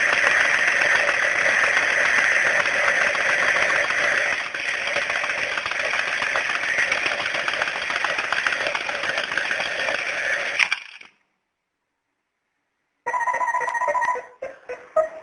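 Novelty bomb-shaped alarm clock ringing with a fast, continuous ring that cuts off suddenly about eleven seconds in. After about two seconds of silence it rings again briefly, then plucked guitar notes start near the end.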